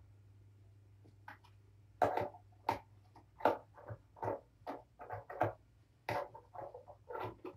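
Kittens wrestling in a fabric cat bed: rapid scuffling and scratching of paws and claws on the bed, a quick run of short rustles about two to three a second starting about two seconds in. There are no meows or hisses, a sign of play rather than fighting. A steady low hum runs underneath.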